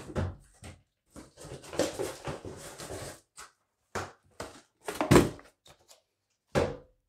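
Cardboard shipping box and a boxed action figure being handled: rustling and scraping for about two seconds, then a few knocks as the box is set down on a wooden shelf, the loudest a dull thump about five seconds in.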